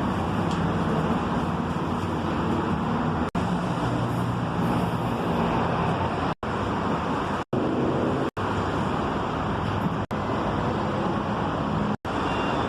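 Steady running noise of a Mexico City Metro Line A train, with a low hum under it. The sound cuts out abruptly for a split second six times.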